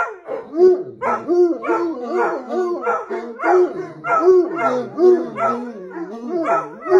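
Bloodhounds and another dog howling and baying together, overlapping calls that rise and fall about twice a second.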